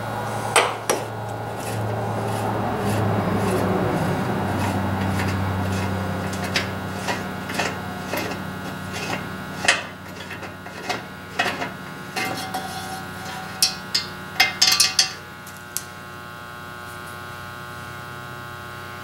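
Metallic clicks and clinks as a brass fuel valve is unscrewed by hand and lifted out of a Coleman stove's fuel tank clamped in a vise, with some rubbing early on, over a steady electrical hum.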